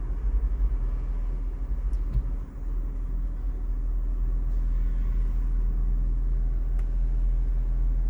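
A low, steady rumble, unsettled in the first couple of seconds and then even.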